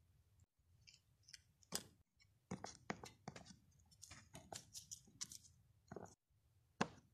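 Faint, irregular clicks and crinkly rustles from small plastic toy figures being handled and moved across the floor.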